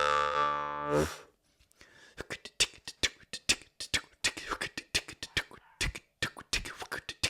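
A Bebb Johnson Midrange jaw harp drone rings for about a second, then cuts off. After a short pause comes the same jaw harp technique done with the mouth alone: quick rhythmic tongue clicks and breath pulses, about four a second, with the mouth's resonance shifting.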